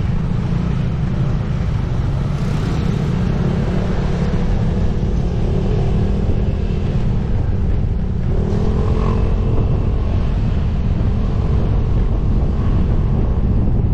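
Riding on a motorcycle: a steady low rumble of wind and road noise, with a faint engine tone that rises about eight seconds in.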